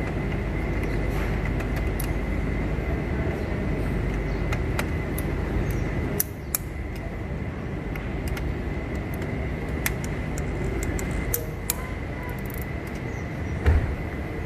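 Steady workshop background noise with a faint steady high whine, scattered small metallic clicks and one louder knock near the end, from hand work on an engine during cylinder head assembly.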